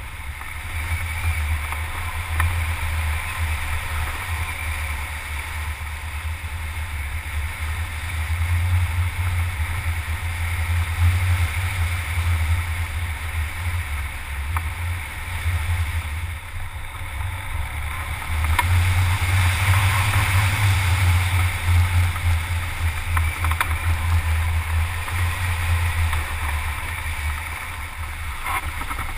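Wind rushing over the microphone of a camera on a hang glider in flight, a steady low buffeting with a hiss above it. It grows louder about eight seconds in and again for a stretch from about eighteen seconds, then eases near the end.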